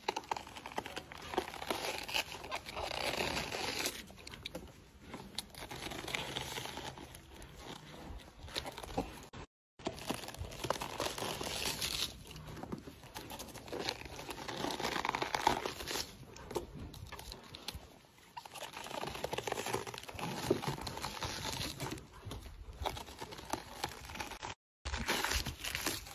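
A puma biting, tearing and chewing a head of lettuce: crisp leaves crunching and ripping in irregular bursts. The sound drops out completely twice, briefly.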